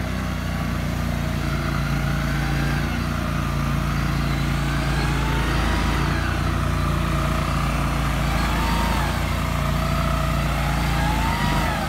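Small amphibious ATV engine running steadily as the vehicle drives through creek water, with a higher whine that rises and falls a few times.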